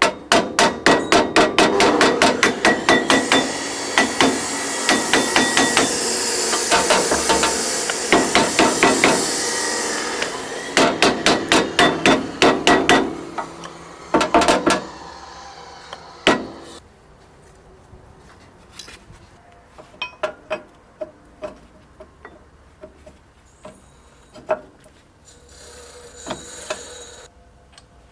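Hammer striking metal parts of a manure spreader's ratchet feed drive during reassembly: a rapid run of strikes, about three a second, for roughly the first half, then scattered lighter taps.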